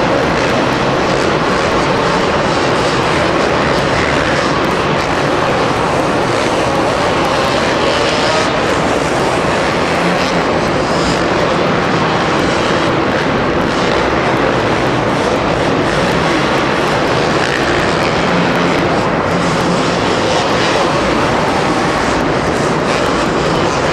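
Several two-stroke motocross motorcycles running hard on a supercross track, a loud, unbroken din of engines.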